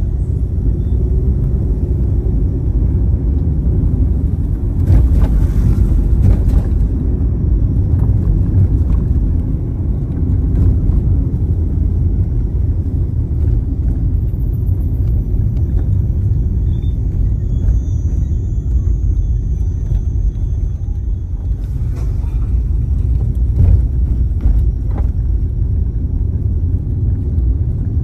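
Steady low rumble of a car driving on a rough road, heard from inside the cabin, with a few brief thumps from the road surface.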